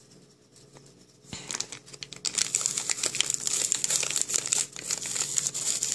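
A foil candy-mix packet crinkling as it is squeezed and worked between the fingers to empty the last of its powder, starting about a second and a half in.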